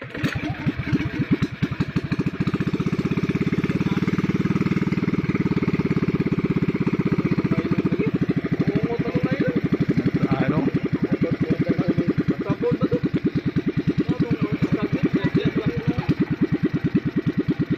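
Small pull-start Loncin engine with a newly fitted carburetor starting and running with a steady, fast beat of firing pulses.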